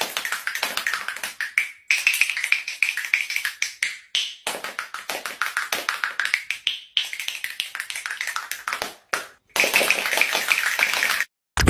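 Cartoon sound effect of rapid tapping on a freshly shaved bald head, in several quick runs separated by short breaks.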